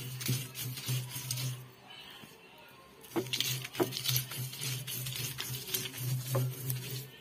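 Cylindrical grinding stone of an ammikkallu rolled back and forth over coarse chilli paste on the flat stone slab: gritty stone-on-stone scraping with small knocks. It comes in two bouts, with a short pause about two seconds in.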